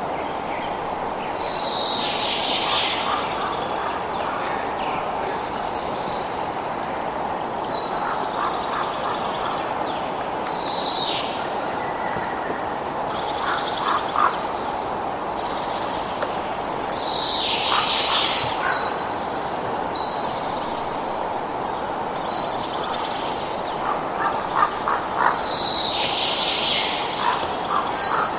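Birds calling, short high chirps and whistles coming in clusters every few seconds over a steady rushing background.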